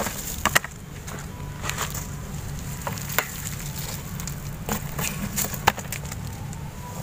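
Dry leaves and light debris rustling and crackling as they are pushed aside by hand and a board is moved, with scattered sharp clicks.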